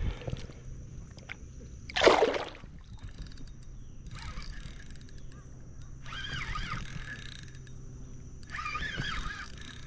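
A short, loud splash about two seconds in, as a released smallmouth bass drops back into the creek, with faint water sloshing around it.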